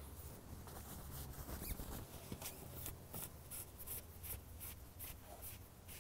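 2003–2008 Suzuki GSX-R1000 front fork leg being pumped up and down by hand, giving a quick series of faint, short strokes at about three a second, mostly from about two seconds in. The fork is being exercised to force the old oil and air out of its damper cartridge during an oil change.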